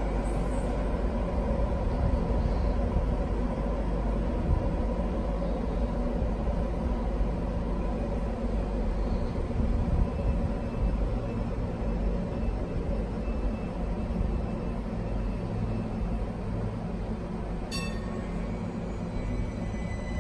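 Sheffield Class 399 tram-train at the platform: a steady low rumble and hum from the vehicle. About eighteen seconds in there is a sharp click, followed by a high, stepping whine from its electrical traction equipment.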